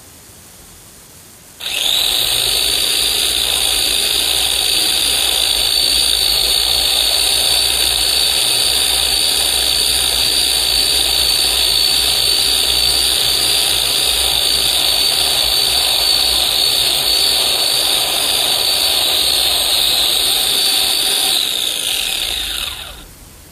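Electric chainsaw cutting wood: the motor starts abruptly, runs with a steady high whine for about twenty seconds, then drops in pitch and winds down near the end.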